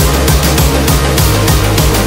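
Background music with a fast, steady beat and strong bass.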